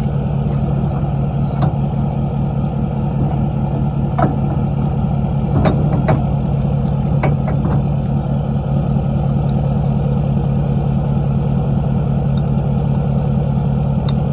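Ford Super Duty pickup engine idling steadily, with several short metallic clicks and knocks from the steel ball-mount hitch being handled at the receiver.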